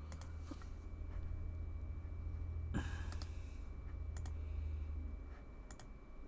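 Computer mouse clicks: a handful of separate clicks spread over several seconds, the loudest about three seconds in, over a low steady hum that dies away about five seconds in.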